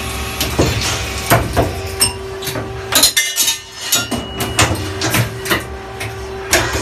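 25AV front-feeding automatic lathe running: a steady machine hum with sharp metallic clicks and clanks from its mechanism, irregular but about two a second, the hum dipping briefly midway.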